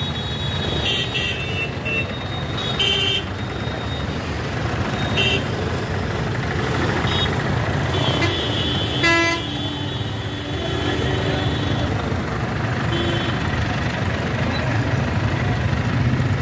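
Diesel engines of ACE Hydra pick-and-carry cranes running steadily during a lift, with a handful of short, high toots every second or two, the loudest about nine seconds in.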